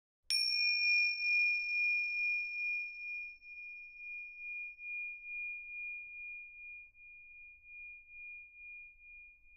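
A metal bell struck once just after the start, ringing out in a single clear high tone that wavers as it slowly fades and is still sounding at the end.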